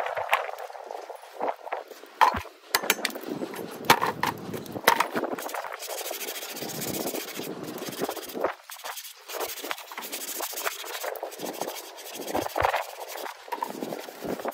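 Metal hand tools clicking and knocking against a boat's propeller-shaft zinc anode as its bolts are worked with a hex key, followed by longer stretches of scraping and rubbing on the shaft.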